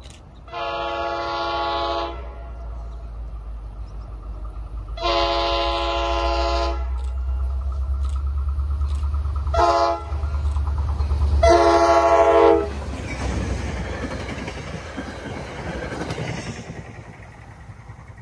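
Locomotive horn sounding the grade-crossing signal: long, long, short, long, over the growing rumble of the approaching train. The train then passes with a rush of wheel and rail noise that fades away.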